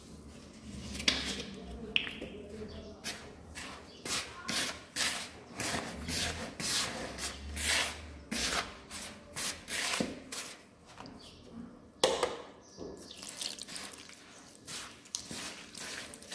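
A hand rubbing and working dry semolina and flour against the sides of a plastic mixing bowl, a rhythmic rasping scrape about twice a second. This is the dry mix for dyoul pastry dough being worked before it is bound with water.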